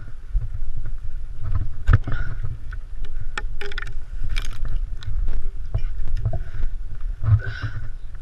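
Wind buffeting the microphone with a low rumble, overlaid by scattered sharp knocks and creaks from a cut tree limb being lowered and swung on a rope.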